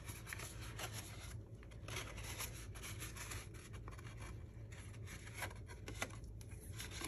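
Faint rustling and rubbing of cardstock as hands fold a box base and press its glued tabs into place, with a few small ticks, over a steady low room hum.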